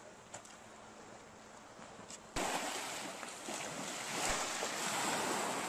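A faint outdoor hush with a few light ticks, then, about two and a half seconds in, a sudden cut to a steady rush of small lake waves washing at the shoreline.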